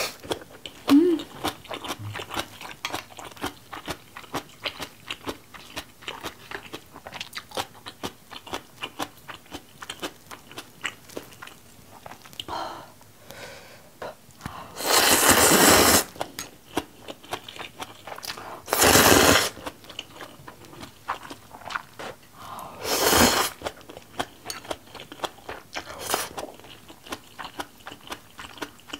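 Close-miked eating of spicy seafood jjamppong ramen: steady wet chewing with many small clicks, broken by loud noodle slurps, one about halfway through lasting about a second, then two shorter ones a few seconds apart and a brief one near the end.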